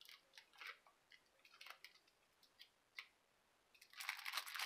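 A few faint clicks and taps, then, about four seconds in, louder crinkling of a plastic wrapper being handled and pulled at.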